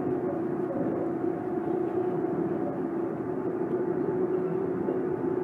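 Tama Toshi Monorail 1000 series train running at a steady speed: a steady motor whine over the rumble of its rubber tyres on the track beam, heard from inside the car.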